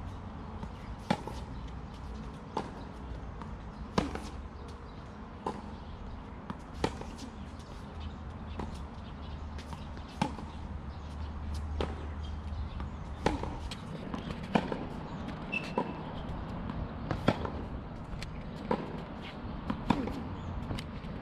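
Tennis ball being struck back and forth in a baseline rally on a hard court: sharp racquet pops and ball bounces about every one and a half seconds, some hits louder than others. A low steady rumble sits underneath and fades out about two-thirds of the way through.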